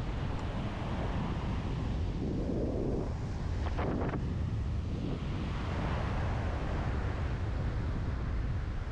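Strong wind buffeting the microphone with a steady low rumble, over the wash of surf breaking on the beach.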